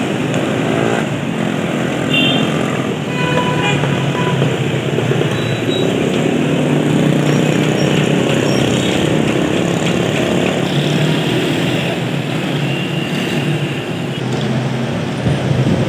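Steady street traffic noise, the drone of passing motor vehicles, with a few brief high tones.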